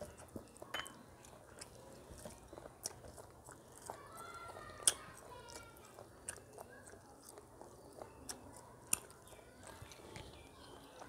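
Close-up eating sounds: fingers mixing rice and curry on a steel plate, and chewing, with scattered sharp mouth and finger clicks, the loudest about five seconds in.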